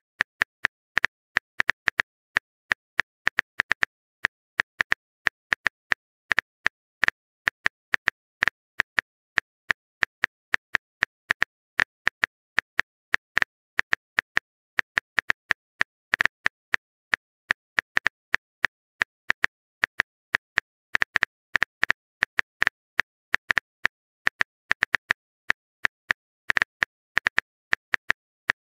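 Phone-keyboard typing sound effect from a texting-story app: a long run of short, sharp clicks, a few a second at an uneven pace and sometimes bunched, with dead silence between them.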